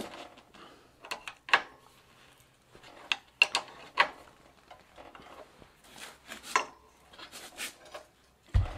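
Bicycle headset parts being worked on by hand: irregular metallic clicks, taps and short scrapes as the ball race and lock nut on the fork are handled and adjusted. A dull thump comes just before the end.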